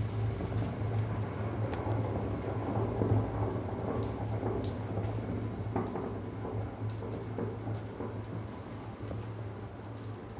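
Red-hot metal ball sizzling and crackling against the material it has been set on, with scattered sharp pops over a steady low hum; the sizzle slowly dies down.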